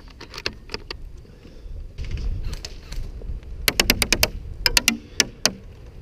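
Airsoft automatic fire: rapid strings of sharp clicks and snaps, about a dozen a second, in two short bursts around four and five seconds in, with a few scattered clicks near the start.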